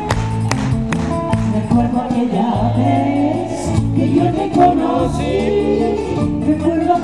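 Live acoustic guitar accompaniment, plucked notes, joined about two seconds in by a woman singing into a microphone.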